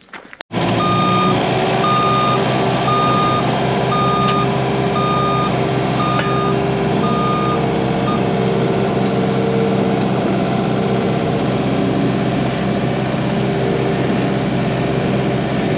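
Case skid steer's diesel engine running steadily under load, heard from the operator's seat. Its backup alarm beeps about once a second while it reverses, then stops a little past halfway, leaving the engine running.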